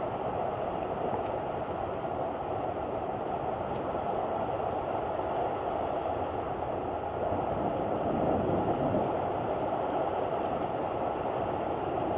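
Steady roar of a thunderstorm's heavy downpour and wind, swelling slightly about seven seconds in.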